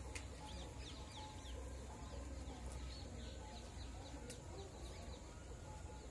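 Birds calling in the open air: many short, quick chirps throughout, over a faint low hum.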